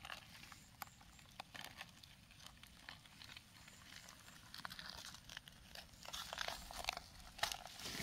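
Faint crackling and rustling of dry leaves, soil and rotten wood being dug through and handled by hand, with scattered small clicks that grow busier toward the end.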